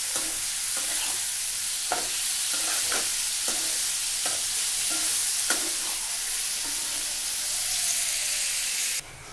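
Chicken liver pieces sizzling in hot oil in a frying pan while a steel spatula stirs them, with irregular scrapes and knocks of the spatula against the pan. The sizzling cuts off suddenly near the end.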